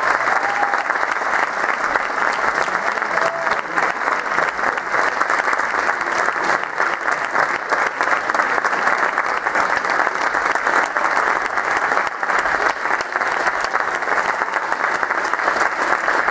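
Audience applauding, dense and steady, for the performers' bows at a curtain call.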